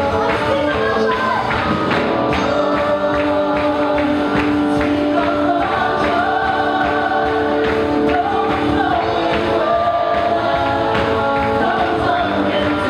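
Live worship music: several singers sing a gospel-style worship song together over instrumental accompaniment with a steady beat, holding long notes.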